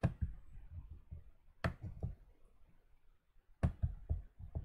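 A few sharp computer mouse clicks, spaced out with quiet between them, as B-spline points are picked and dragged. The loudest come about a second and a half in and near the end.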